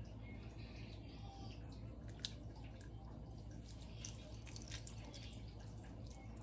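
Gravy poured in a thin stream from a glass jug onto a plate of sliced roast pork and vegetables: faint trickling and dripping, with a brief click a little after two seconds.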